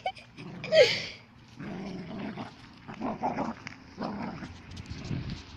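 Two dogs growling as they play tug-of-war over a toy, with one short, louder bark-like call about a second in.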